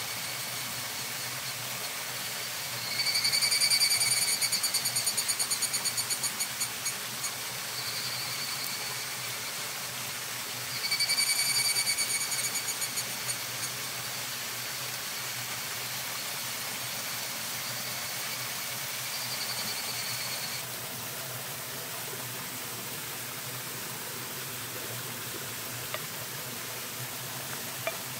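An animal calling in high-pitched pulsed trills, loudest twice (about 3 s and 11 s in, each lasting a few seconds with the pulses slowing toward the end), with fainter calls in between, over a steady hiss.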